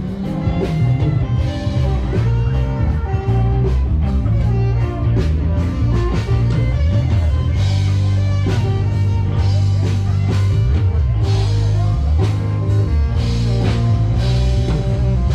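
Rock music with guitar and drums playing at a steady loud level.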